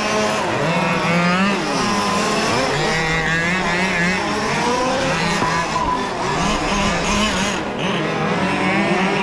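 Engines of several large-scale RC Formula 1 cars racing on track, revving up and down at different pitches as the cars accelerate, brake and pass.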